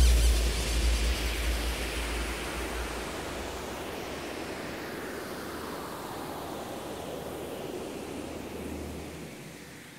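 A deep cinematic boom hits once at the start, a sudden impact with a low rumble and a hissing wash that slowly fade away over several seconds.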